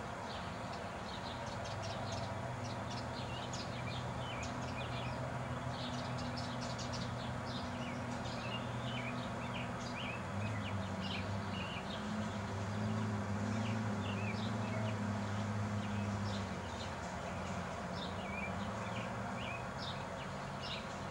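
Songbirds chirping and singing, many short notes throughout, over a steady low hum that swells a little midway.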